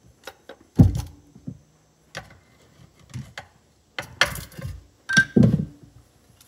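Screwdriver prying and tapping at the tabs of a Can-Am Smart-Lock front differential's metal case, giving a series of irregular metal knocks and clanks as the case is worked loose and handled. The loudest knock comes about a second in and rings briefly.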